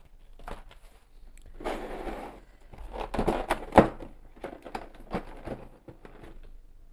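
Clear plastic packaging of a boxed action figure rustling and crinkling as the blister tray and its plastic sheet are handled, with a sharp knock a little before four seconds in.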